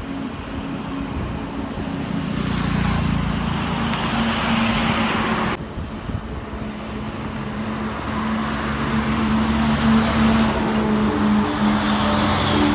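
Highway traffic of heavy diesel lorries: a steady low engine drone with tyre noise. It drops suddenly about halfway through and grows louder near the end as a loaded lorry and a car pass close.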